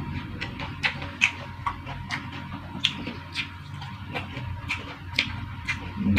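Close-up chewing and mouth sounds of someone eating: irregular sharp clicks, a couple a second, over a low hum.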